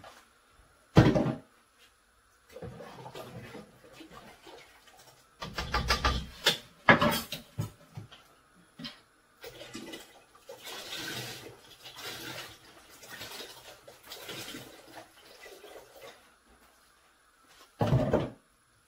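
Milk glugging from a carton as it is poured into a large steel cooking pot, with a few sharp knocks from handling the cartons about a second in, around six to seven seconds, and near the end.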